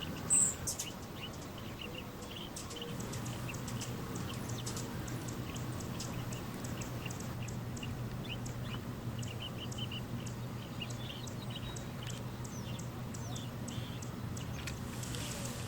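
Hummingbird calling: a run of short, high chips repeated irregularly, with a brief louder high note about half a second in. Under it a steady low hum sets in about three seconds in.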